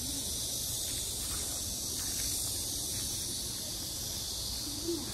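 A chorus of cicadas buzzing, a steady high-pitched drone, over a low rumble. A short, low pitched sound is heard briefly near the end.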